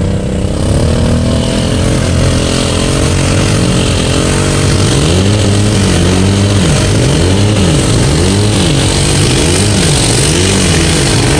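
An off-road vehicle's engine is revving hard while the vehicle is stuck in deep mud, its wheels spinning to try to drive it out. From about halfway through, the engine pitch rises and falls over and over, roughly once a second.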